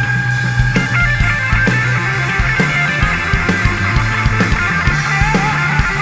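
Rock band playing an instrumental passage live: distorted electric guitar and electric bass over a steady drum beat of about two hits a second.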